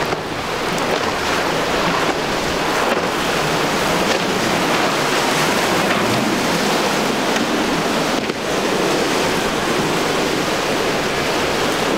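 Steady rush of surf and churning wake water, with wind buffeting the microphone.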